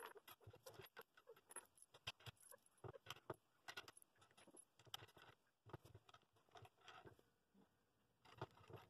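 Faint, scattered metallic clicks and clinks of small steel washers and wing nuts being handled and threaded onto the bolts of a wooden glue press.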